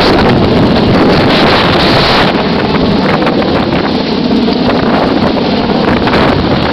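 Loud, steady wind from a hovering helicopter's rotor downwash buffeting the microphone, with the helicopter's running noise underneath, while a rider hangs on its rescue hoist's jungle penetrator.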